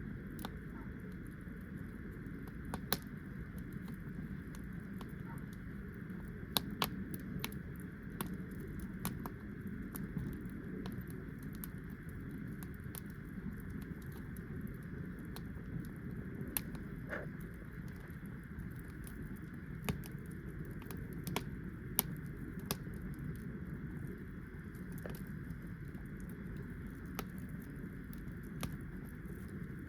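Wood fire crackling, with sharp, irregular pops and snaps from the burning wood over a steady low rushing noise.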